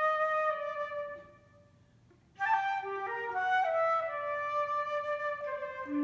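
Solo flute playing a slow melody: a held note dies away about a second in, and after a rest of about a second the line comes back with a sharp attack and moves through a series of held notes.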